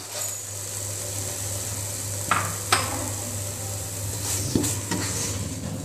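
Spatula stirring and scraping thick coriander-leaf paste in a nonstick pan, with a few sharp knocks of the spatula against the pan, over a steady low hum.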